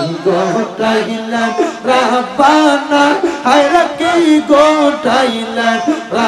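A man singing a Bengali devotional song in praise of the Prophet, in long drawn-out notes that arch up and down, with other men's voices joining in.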